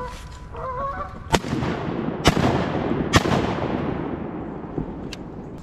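Three shotgun shots about a second apart, each a sharp crack followed by a long echoing decay. A bird calls just before the first shot.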